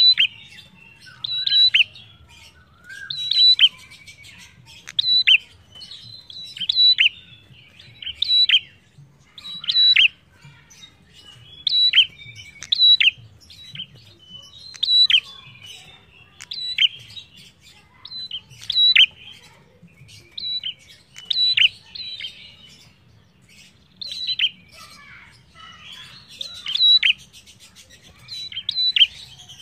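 A caged prenjak, a small rufous-capped songbird, calling over and over: short phrases of loud, sharp, high chirps with quick downward sweeps, one phrase every second or two.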